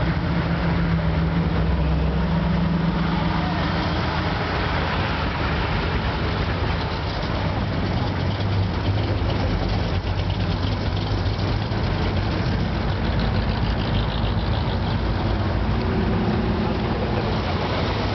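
Engines of a slow line of classic American cars rolling past one after another at walking pace, a steady low engine rumble at near idle.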